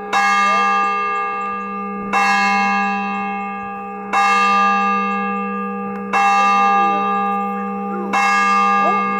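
A single church bell tolling, struck five times about two seconds apart, each stroke ringing on and fading over a steady low hum.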